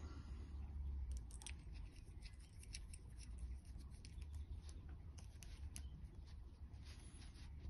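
Light, irregular clicks and ticks of small plastic and metal RC car parts being handled and fitted by hand.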